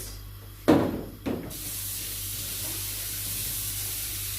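Two knocks of a container against the cooking pot, then water poured into the pot of boiling meat and stockfish, a steady hiss from about a second and a half in.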